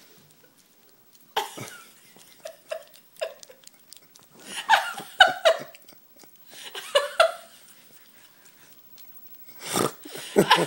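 A person's held-back laughter in a few short bursts, over the wet smacking and clicking of a chihuahua licking peanut butter from its mouth.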